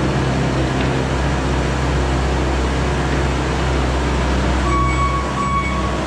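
Skid steer's diesel engine running steadily, with two short high beeps near the end.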